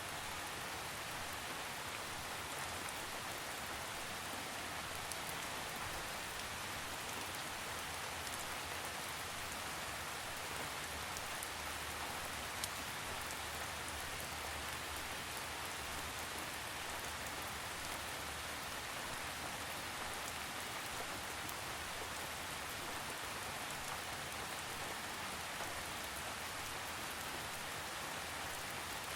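Steady rain falling: an even hiss of rain on a surface, with a few sharper drop ticks here and there.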